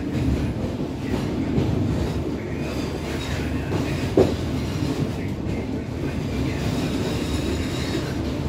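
Rear coach of a passenger train rolling slowly at about 16 km/h, its wheels rumbling steadily over the rails. There is one sharp knock about four seconds in.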